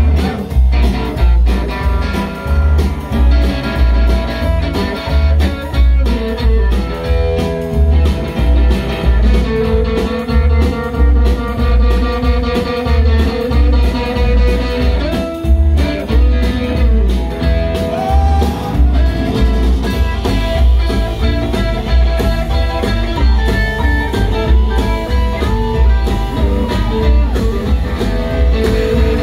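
Live rock'n'roll band playing an instrumental break: electric guitars, piano, bass and drums with a steady beat.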